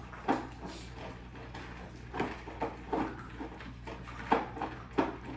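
Close-up eating sounds of someone chewing pot roast from a spoon, coming as irregular short mouth noises over a steady low background hum.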